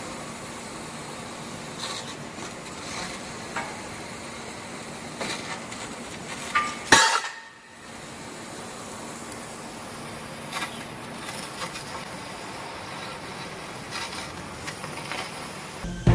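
Machine-shop noise around a CNC laser cutter: a steady low hum and hiss with scattered light clinks and clatter of metal, and one louder metallic clatter about halfway through.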